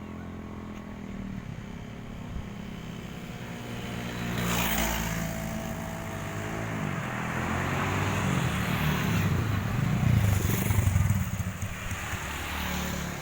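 Road traffic passing close by, with engines rumbling. One vehicle rushes past about four and a half seconds in, and a louder, heavier pass comes around ten to eleven seconds in.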